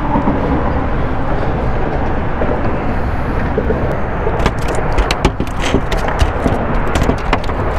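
A sheepshead flopping on a boat's fiberglass deck: a run of sharp slaps and knocks in the second half, over a steady, loud rushing noise.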